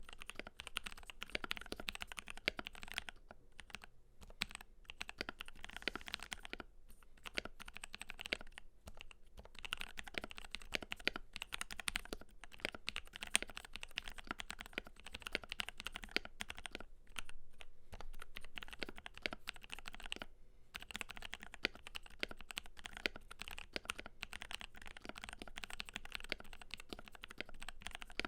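Continuous fast typing on a Keydous NJ80 mechanical keyboard with a brass plate, lubed Durock Cerulean switches and Cherry profile PBT keycaps, a dense stream of keystroke clacks broken by a few short pauses.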